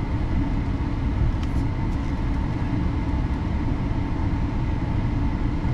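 Steady road and engine noise inside a moving pickup truck's cab, a low, even rumble.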